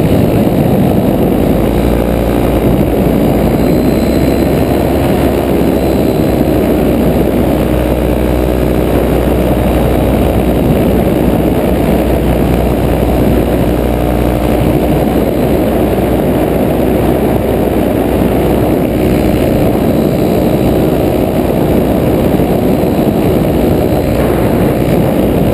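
Paramotor engine and propeller running loud and steady behind the pilot in flight.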